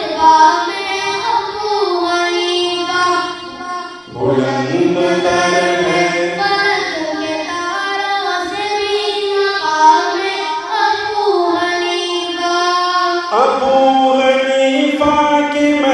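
An Urdu devotional nasheed sung in long, held melodic phrases. The singing breaks off briefly about four seconds in, and a new phrase begins near the end.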